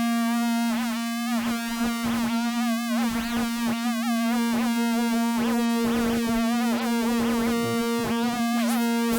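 Phase Plant wavetable synthesizer patch holding one sustained note: a steady low tone under a stack of upper overtones that wobble and warble irregularly, a random LFO moving the filter.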